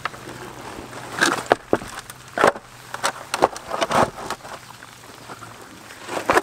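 Plastic MaxTrax recovery boards being set down and shifted on a muddy, stony trail: irregular knocks and scrapes of the boards against dirt and rock.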